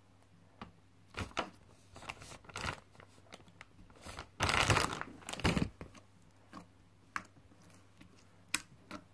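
Clear plastic bag crinkling and rustling as it is pulled open by hand, in irregular bursts that are loudest around the middle, then a few small clicks as the slime comes out.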